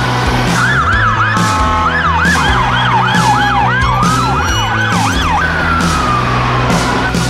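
Emergency vehicle siren in a fast yelp, sweeping up and down about three times a second, then changing to a slower falling wail about five and a half seconds in. It sounds over background music with steady bass notes and a regular drum beat.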